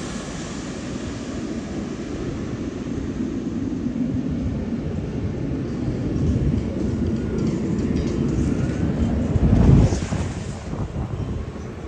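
Airliner's engine roar rumbling on after the aircraft has passed overhead. A gust of wind buffets the microphone near the end.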